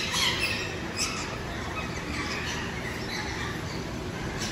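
Birds chirping and squawking over a steady background noise, with short sharp calls near the start and about a second in.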